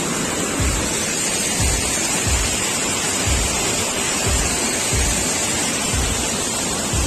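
Steady rush of falling river water, with a low thump about once a second.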